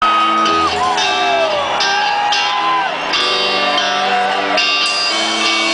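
Live country-rock band playing loud, with an electric guitar holding and bending notes over the band, heard from among the concert audience.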